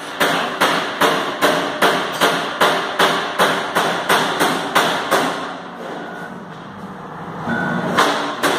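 Regular knocking, about two and a half blows a second, breaking off for a couple of seconds and starting again near the end.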